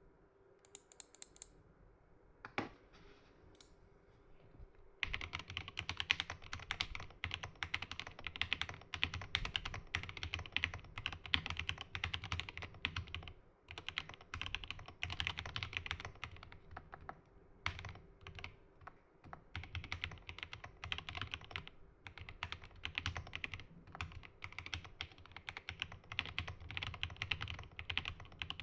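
Typing on an Epomaker GK68XS mechanical keyboard with Gateron Milky Yellow linear switches: a few single key presses, then fast continuous typing from about five seconds in, with a couple of brief pauses.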